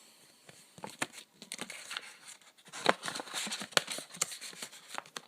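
Pokémon trading card pack packaging crinkling and tearing as it is pulled open by hand, in irregular crackles that get busier about two seconds in.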